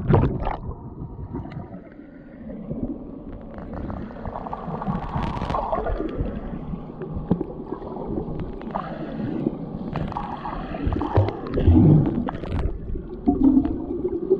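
Underwater sound heard by a submerged camera: a muffled low rumble with gurgling water and bubbles stirred by swimmers kicking around it, and scattered dull clicks and knocks.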